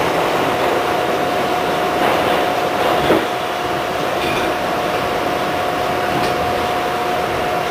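Westinghouse R68 subway car running at speed, heard from inside the car: a steady rumble with a high tone held at one pitch, and a couple of clacks from the wheels.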